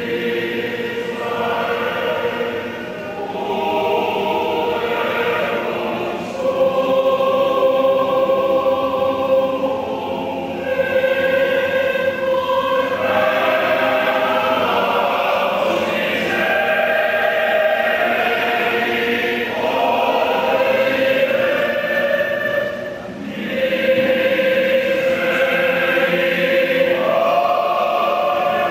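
Choir singing a slow liturgical hymn in long held notes, moving to a new pitch every few seconds, with brief breaths between phrases.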